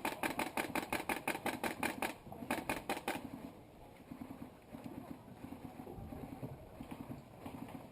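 Airsoft gun firing on full auto: two bursts of rapid, evenly spaced shots with a short break between them, ending about three seconds in, followed by fainter sounds.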